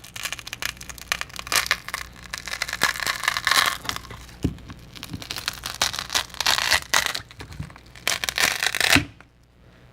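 A smartphone LCD panel being pried and peeled off its frame: irregular crackling, tearing and scraping as the adhesive gives way. It stops about nine seconds in.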